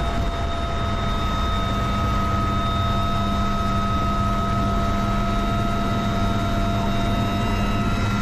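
UH-1Y Venom helicopter's twin turboshaft engines and rotor running steadily, heard from inside the open cabin, with several steady high whines over low rotor noise.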